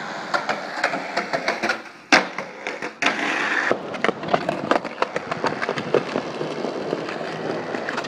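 Skateboard on concrete: wheels rolling with a run of irregular clicks and knocks, and one sharp, loud knock about two seconds in.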